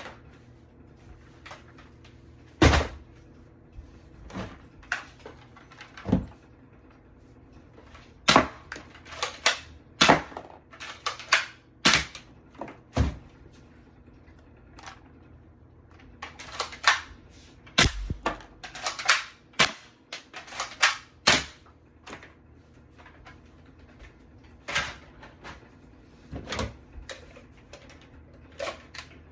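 Irregular sharp clicks and knocks, some single and some in quick clusters, with quiet gaps between.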